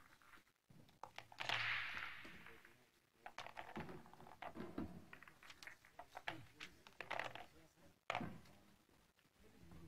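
Faint scattered clicks and rustling with indistinct muffled voices, and a short hiss about a second and a half in.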